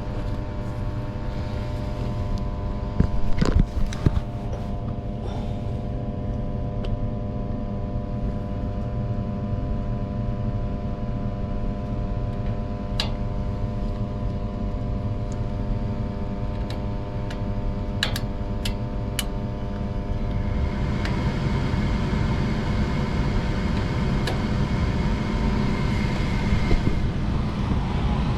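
Gas furnace running with a steady motor hum, several sharp clicks about three to four seconds in and again around eighteen seconds. About twenty seconds in a louder rushing noise joins the hum.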